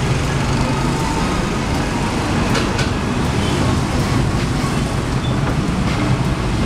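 Steady road traffic noise, with a few faint clicks of cutlery against plates.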